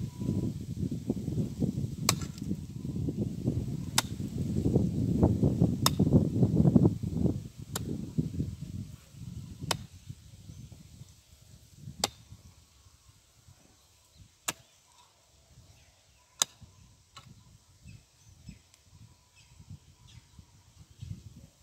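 Hoe chopping and scraping into a clay bank, with a sharp strike about every two seconds. The scraping is heavy at first and dies away about a third of the way through, and the strikes stop a few seconds before the end.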